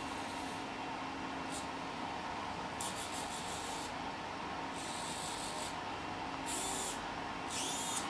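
Two small hobby servo motors whirring in short bursts, about six times, as they follow the joystick's movements; one burst near the end sweeps briefly in pitch. A faint steady hum runs underneath.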